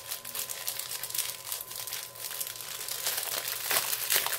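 Small clear plastic bags of diamond-painting resin drills crinkling and rustling as they are handled and shuffled. The crackle is irregular and grows louder over the last second or so.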